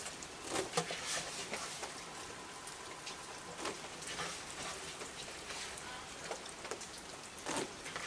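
Steady rain falling, with scattered sharp taps and clicks.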